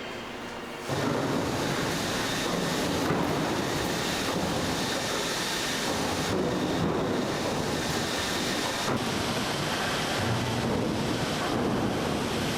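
Steady loud noise of factory machinery, starting abruptly about a second in, with small changes in character at a couple of points.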